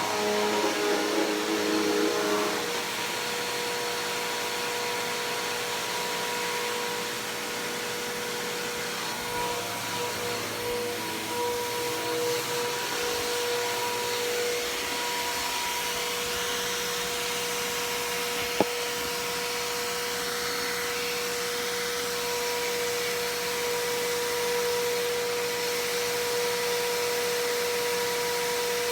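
Bissell PowerForce Helix Turbo upright vacuum cleaner running steadily with a constant motor whine. It is a little louder and more uneven for the first couple of seconds. There is one sharp click a little past halfway.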